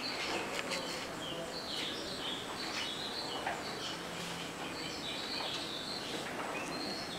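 Small birds chirping over and over in short, stepped high notes, over faint room noise.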